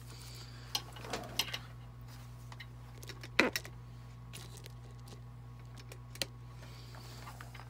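A few light clicks and taps as a cut silverware fork is handled against a wooden block held in a bench vise, the sharpest about three and a half seconds in, over a steady low hum.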